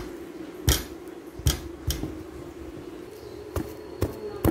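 Wooden pestle pounding boiled unripe bananas in a wooden mortar to make nilupak: about six thuds at an uneven pace as it strikes the soft mash.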